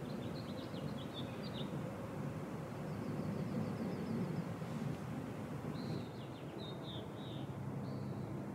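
A small songbird singing several short chirping phrases and a rapid trill, high and thin, over a steady low rumble of outdoor background noise.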